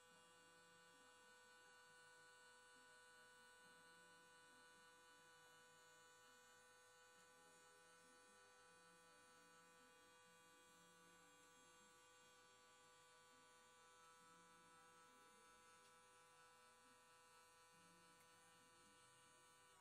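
Near silence with a faint steady electrical hum.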